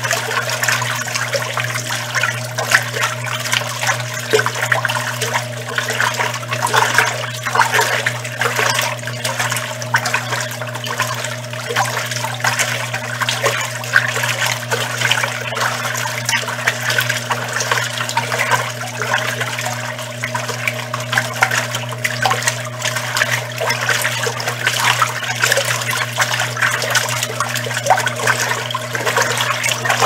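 Arno Lavete Intense Delicate (ML61) semi-automatic top-load washing machine agitating a duvet on its heavy wash program: steady churning and sloshing of water in the tub over the even hum of its motor.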